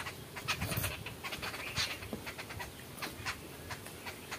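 Eating sounds of two people eating rice and fish by hand: a string of small, irregular smacks and clicks from chewing and from fingers working rice on steel plates.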